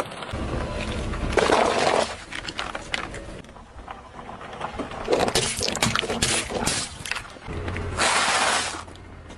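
A car tyre rolling over and crushing plastic food cups, with bursts of cracking and popping. Near the end a bundle of dry spaghetti snaps under the tyre with a dense crunch.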